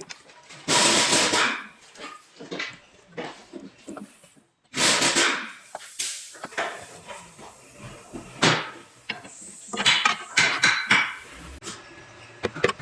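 Irregular metallic knocks and clanks, with several longer noisy bursts about a second, five seconds and ten seconds in.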